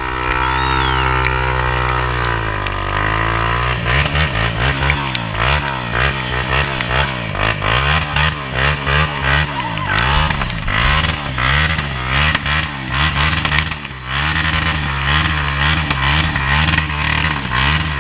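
ATV engine running steadily, then revving hard up and down again and again as the quad spins its wheels in the mud, with clattering throughout.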